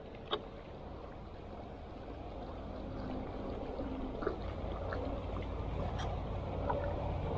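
Small skiff under way on an electric trolling motor: water trickling and lapping along the hull over a low steady hum, slowly growing louder, with a few light clicks.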